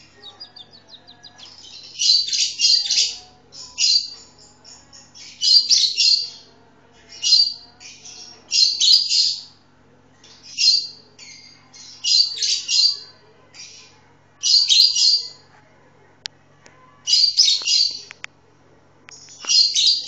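Masked lovebird calling in repeated shrill bursts of rapid chirps, a burst every one and a half to two seconds, each lasting about half a second to a second.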